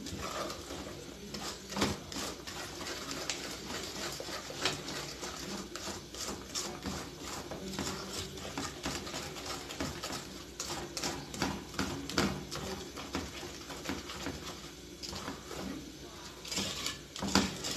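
A spoon scraping and knocking against the inside of an aluminium saucepan as thick chocolate icing is stirred, in quick, uneven strokes.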